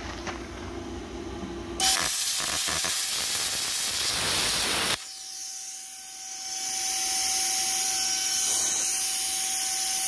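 CUT50DP plasma cutter torch cutting a bellhousing flange. After a quieter hum, a loud rushing hiss starts suddenly about two seconds in. About halfway through it changes abruptly to a higher, thinner hiss with a steady whine under it.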